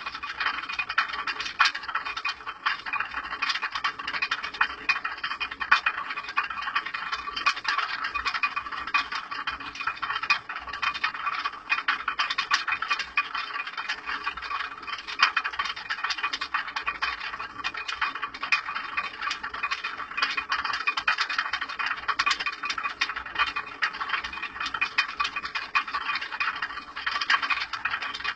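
Water-powered stone flour mill running: a continuous, fast, even rattle from the grain hopper's wooden feeder knocking against the turning upper millstone as it shakes grain down.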